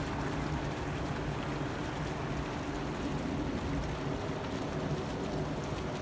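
Small fountain jets bubbling and splashing into a stone-edged pond: a steady water noise over a low, constant city hum.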